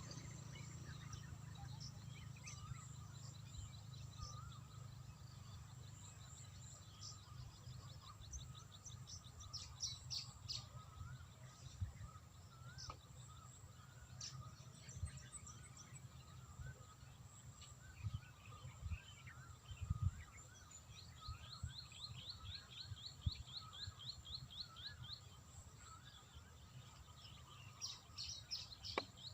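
Small birds calling and chirping, with a fast trill of repeated high notes in the second half, over a low rumble of wind or handling noise with a few soft thumps.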